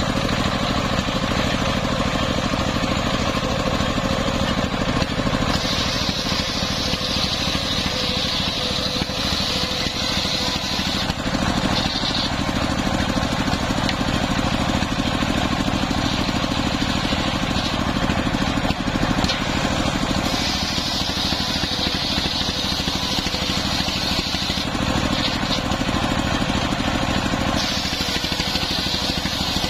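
Large circular saw blade of an engine-driven sawmill table ripping lengthwise through a waru log, over the steady running of the stationary engine that turns it by belt. A higher cutting whine comes in as the log is fed into the blade: about five seconds in, again around twenty seconds in, and near the end.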